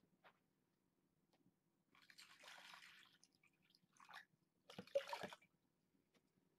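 Faint rustling and scraping over near-silent room tone: a rustle lasting about a second, starting about two seconds in, and a short clatter of knocks near five seconds.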